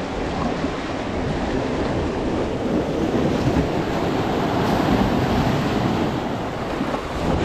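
Sea surf washing and breaking against shoreline rocks, a steady rushing that swells louder midway.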